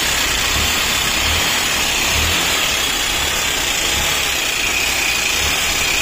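Hero CBZ Xtreme's single-cylinder air-cooled engine idling with a metallic 'tang tang tang' knock from the top end, low thumps recurring about once a second. The mechanic puts it down to a piston about 90% seized and seized rockers and valves, after the engine was run without oil.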